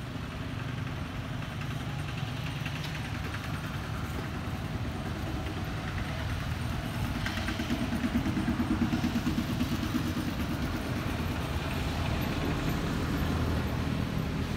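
A motor vehicle engine running, a steady low rumble that grows louder about seven seconds in and eases off again a few seconds later.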